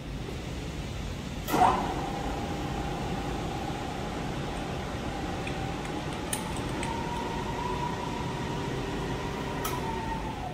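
TRAK K3 knee mill's spindle drive starting with a click, then running with a steady whine that rises in pitch partway through as the variable-speed dial is turned up toward 1200 RPM.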